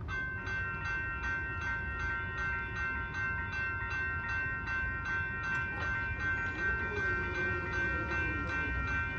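Railroad crossing bell starts ringing as the crossing activates, striking evenly about three times a second with a steady ringing tone.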